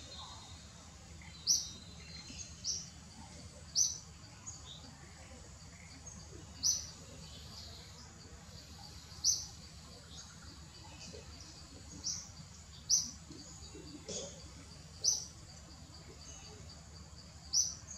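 A bird repeating a short, high chirp about ten times at uneven gaps of one to three seconds, over a steady low background hum.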